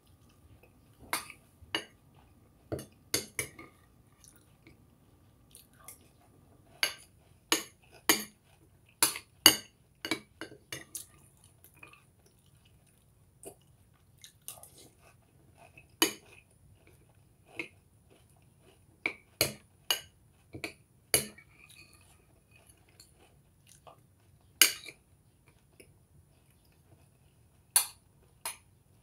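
Spoon clinking against a bowl of crunchy cereal in sharp, irregular strikes, with chewing in between.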